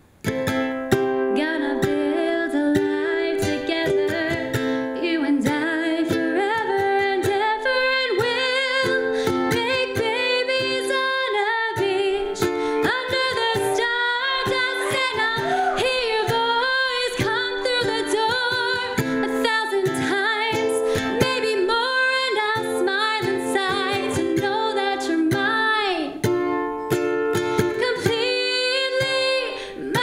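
A woman singing to her own strummed ukulele accompaniment, a solo voice over steady chords.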